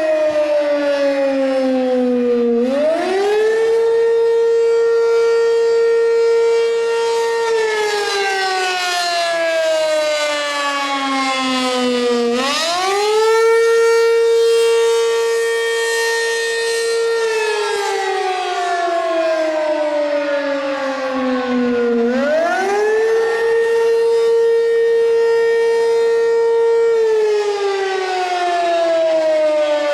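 ACA P-15 electromechanical fire siren sounding the Attack signal: the pitch winds up quickly, holds steady for about four seconds, then slowly falls for about five seconds. This wail cycle repeats about every ten seconds, three wind-ups in all.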